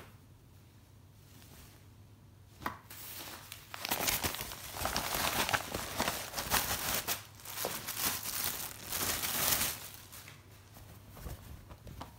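Packaging being crinkled and torn open by hand, a burst of crackling lasting about six seconds after a single click, then a few small clicks near the end.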